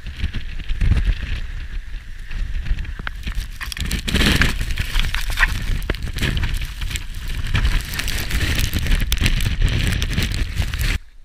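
Strong gusty wind buffeting the camera microphone in swells of low rumble, with blowing snow hissing and crackling against the camera. The sound cuts off suddenly near the end.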